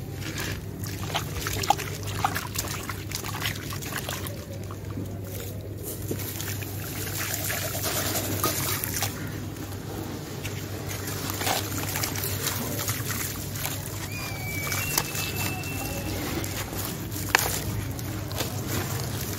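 Water sloshing and trickling in a tub as hands dip a sand-cement chunk and crumble it under the water, with many scattered sharp gritty clicks. A steady low hum runs underneath.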